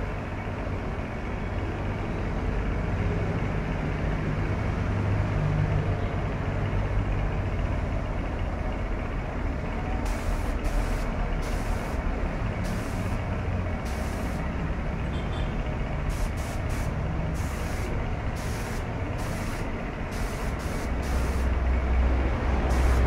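Gravity-feed air spray gun spraying primer, its air hiss starting and stopping in short bursts as the trigger is pulled, most of them in the second half. Under it runs a steady low mechanical rumble.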